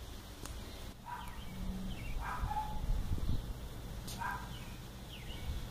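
Three short animal calls, a second or two apart, over a steady low rumble of outdoor background noise, with a few faint high chirps between them.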